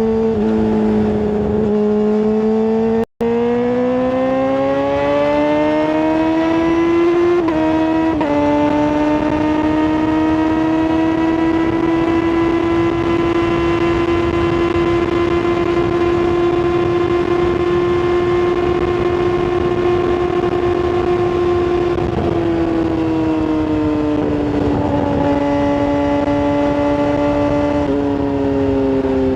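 Tuned Yamaha R6 inline-four engine with a full exhaust, running hard: its pitch climbs, dips briefly twice around eight seconds in like gear changes, holds high and steady, then falls away near the end. The sound cuts out for a moment about three seconds in.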